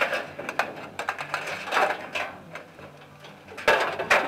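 Dryer wiring harness and its plastic connectors being fed through the sheet-metal top panel of a gas clothes dryer: scattered clicks, rattles and scraping against the metal, with a louder knock near the end.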